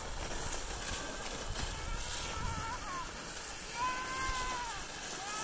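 A child's high, drawn-out calls without words, twice, the second and clearer one about four seconds in, over a steady rushing noise.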